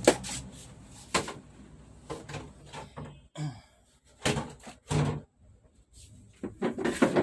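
Irregular knocks and clatters from handling an LED TV's plastic back cover as it comes off the set. The loudest knocks come right at the start and again near the end.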